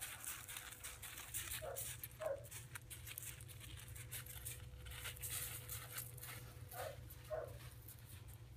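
Faint crunching of paws and footsteps on loose gravel, with a steady low hum under it. Four short faint calls come in two pairs, a few seconds apart.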